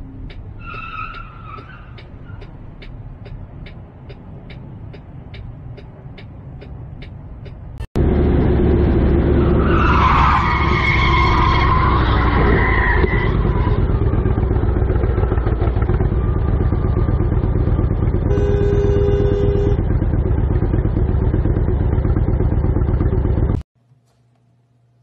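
Vehicle road noise with a steady tick about three times a second. About eight seconds in it cuts suddenly to loud wind and road rush from a moving vehicle, with tyres squealing in a near-miss and, some seconds later, a horn sounding for about a second and a half. Near the end it cuts off to near silence.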